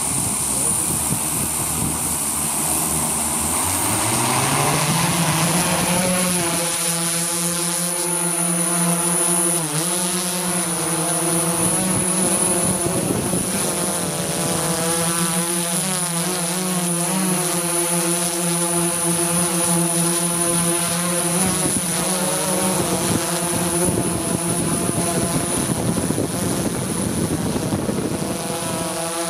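Quadcopter drone's motors and propellers buzzing close to the microphone. About four seconds in the pitch rises as the motors speed up, then it holds a steady hum with wavering overtones and a thin high whine above.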